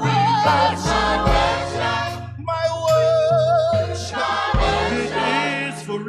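Gospel-style worship music: singers' voices holding notes with vibrato over bass and drums, with a held high note in the middle.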